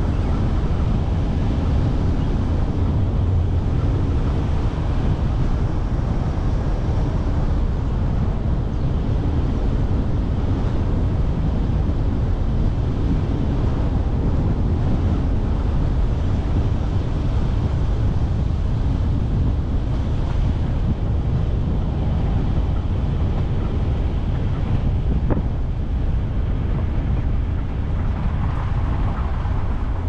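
Steady wind and road noise from a moving car, heavy at the low end, with wind buffeting the microphone. It gets a little quieter near the end.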